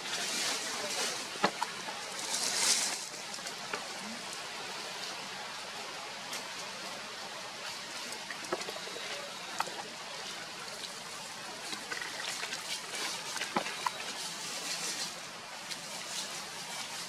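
A long-tailed macaque chewing a ripe mango: wet smacking and squelching with scattered sharp clicks as it bites the fruit, over a steady background hiss.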